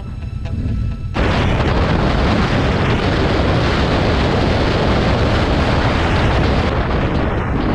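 Wind buffeting the microphone of a camera on a moving motorcycle, over the low rumble of the Yamaha's engine. The buffeting comes in abruptly about a second in and eases slightly near the end.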